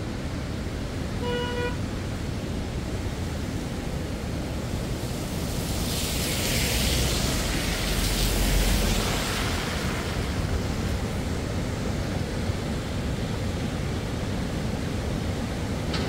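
An SUV drives past on a wet road, its tyres hissing, swelling to loudest about eight seconds in and then fading away. Under it runs the steady rush of a rain-swollen mountain river, and a short horn beep sounds about a second in.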